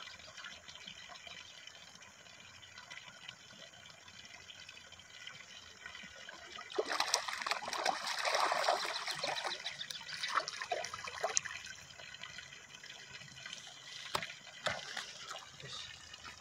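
A hooked fish thrashing and splashing at the surface of a pond, starting about seven seconds in with a few seconds of hard splashing, then fewer, shorter splashes as it is pulled in.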